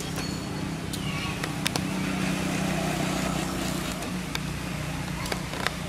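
Steady low hum of a motor vehicle engine running, with a few sharp clicks over it.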